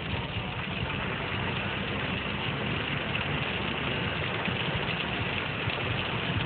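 Steady rush of heavy rain on a vehicle, heard from inside, with an engine idling underneath.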